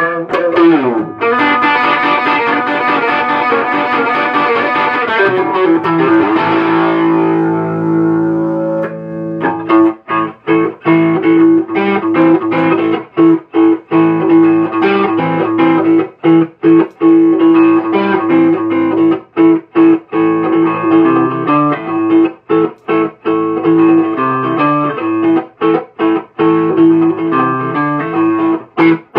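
1954 Gibson Les Paul Goldtop electric guitar with P90 pickups, played through an amp with some distortion. Ringing chords give way, about six seconds in, to a note sliding down. Then comes a riff of short, choppy notes with sudden stops over a held note.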